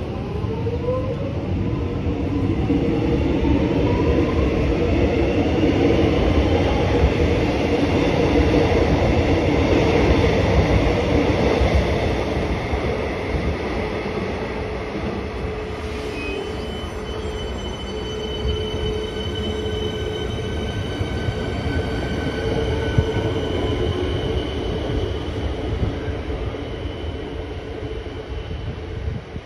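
Electric suburban train running past, building to its loudest through the middle and easing off after, with a rising motor whine at the start and a thin high squeal from the wheels joining about halfway.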